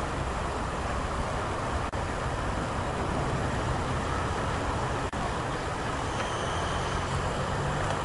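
Steady low engine drone under a broad rushing noise, with two brief dropouts.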